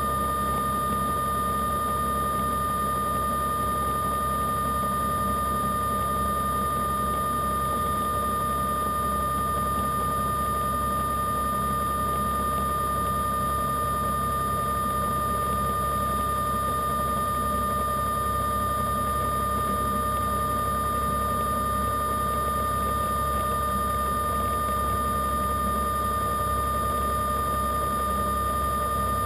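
Underwater diver propulsion vehicle's electric motor running at constant speed: a steady high whine over a low hum, with no change in pitch or level.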